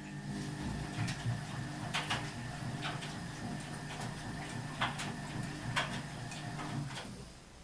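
Ardo washing machine running: a low, steady mechanical hum with irregular sharp clicks and knocks, all stopping near the end.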